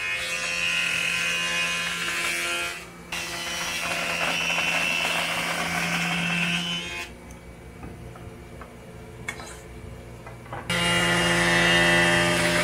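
Jointer-planer with a helical cutterhead running and cutting a board, a loud dense cutting noise over a steady motor hum. It goes quieter, with a few light clicks, for a few seconds past the middle, then cuts loudly again about eleven seconds in.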